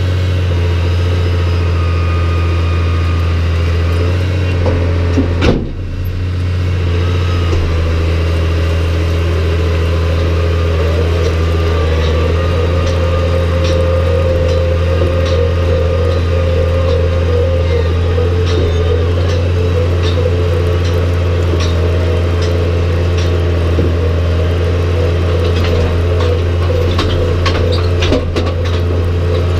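New Holland T6030 tractor's diesel engine running steadily while it tows a rock picker, with scattered rattles and knocks from the picker, more frequent near the end.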